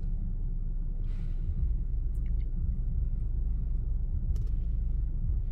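Steady low rumble of an idling car, with a couple of faint clicks.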